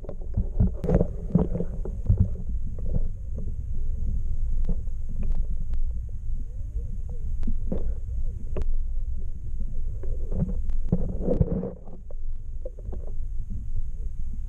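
Muffled low rumble of water heard through a submerged GoPro housing in shallow lake water, with scattered sharp clicks and knocks.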